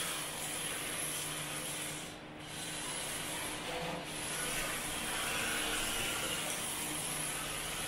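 Rear-wheel-drive RC drift car's tyres sliding and scrubbing across a concrete floor as it drifts, a continuous rubbing hiss over a faint steady hum. The scrub eases briefly about two seconds in, then picks up again.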